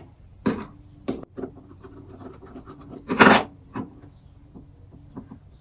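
Outboard fuel-pump and carburetor parts being handled and taken apart on a workbench: a few light knocks and clicks, with one louder scrape about three seconds in.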